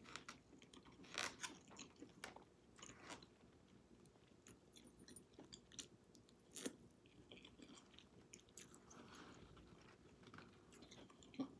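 Faint chewing and wet mouth sounds of a person eating collard greens, with scattered soft clicks and smacks over near silence.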